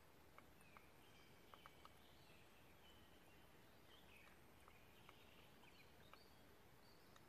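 Near silence: a faint steady hiss, with a few scattered faint clicks and faint high chirps.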